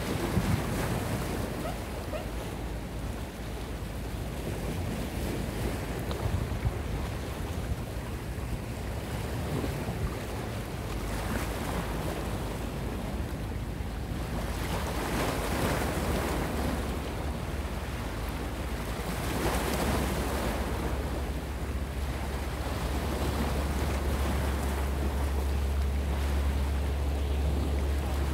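Small waves washing and breaking against the rocks of a breakwater, swelling every few seconds, with wind buffeting the microphone. A low steady rumble grows louder over the last few seconds.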